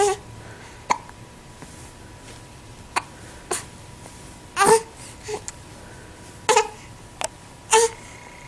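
A run of hiccups, about nine of them at uneven intervals of roughly half a second to two seconds. Each one is short and sudden, and some are louder than others.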